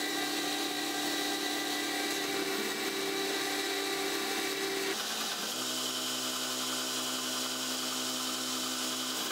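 Belt grinder running steadily as the profile of a forged 4140 steel axe head is ground against the belt. The steady hum changes pitch about five seconds in.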